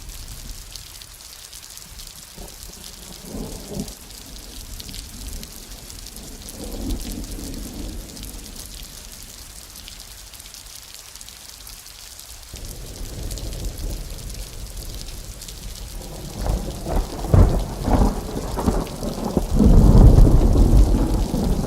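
Thunderstorm: steady rain hiss with a few soft distant thunder rumbles. About 16 seconds in, thunder cracks sharply several times and builds into a loud, deep rolling peal near the end.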